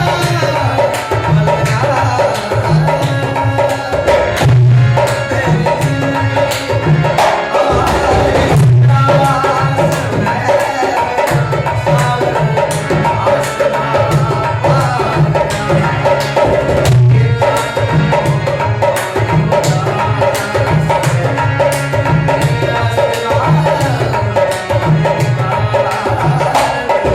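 Instrumental passage of an Indian folk song: hand drums play a steady rhythm of strong low strokes under a sustained melody instrument, with no singing.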